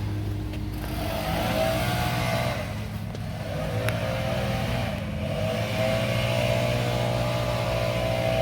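Car engine running with a steady low drone, its pitch dipping and climbing back several times as it revs.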